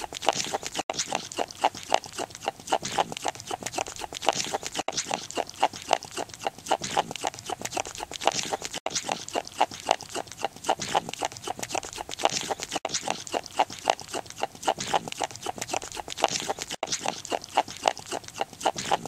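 A hyrax chewing right up at the microphone: a rapid, even run of crunching jaw clicks, with a brief drop-out about every four seconds.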